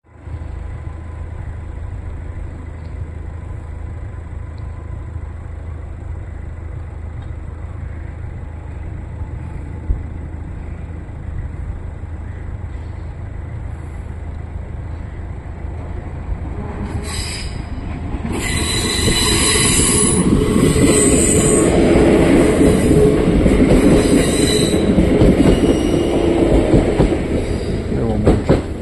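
ŁKA Newag Impuls 2 electric multiple unit pulling away and coming up the line. Its running noise swells from a low rumble into a loud pass-by from about two-thirds of the way in, with a high-pitched squeal over the pass.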